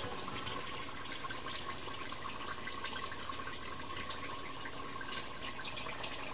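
Pork belly sizzling and bubbling in its rendered fat in a clay pot: a steady hiss scattered with small pops. The adobo's liquid has cooked down and the pork is frying toward golden brown.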